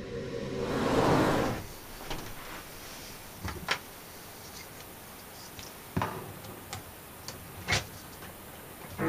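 A rising and falling whoosh in the first second and a half, then a handful of short clicks and knocks, about five, from a hand handling cables and gear on a desk.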